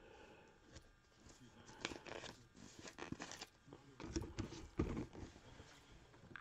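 Faint handling noise of cardboard boxes being picked up and moved: scattered rustles and crinkles of packaging, with a few dull knocks around four to five seconds in.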